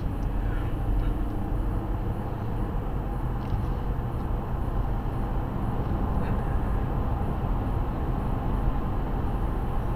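Steady road noise and engine hum of a car driving at freeway speed, heard from inside the cabin.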